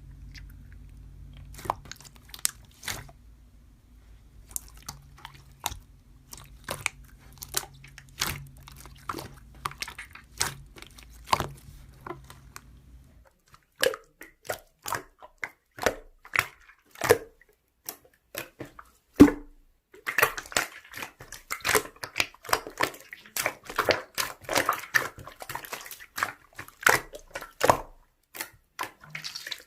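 Hand-squeezed and poked slime making sticky clicks and pops, scattered at first over a low hum, then denser, turning to a near-continuous wet crackle about two-thirds of the way in.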